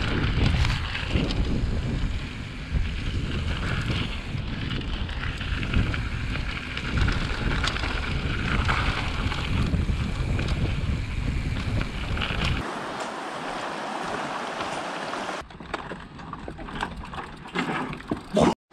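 Wind buffeting the microphone of a camera on a mountain bike riding a gravel singletrack, mixed with the crunch of the tyres and rattling of the bike. The low wind rumble drops away about two-thirds of the way through, leaving a lighter hiss and scattered clicks.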